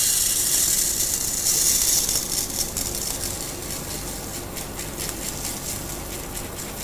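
Dry rice grains pouring from a plastic tub into a plastic grinder hopper: a steady hiss that thins into a patter of separate grains as the flow eases and grows quieter.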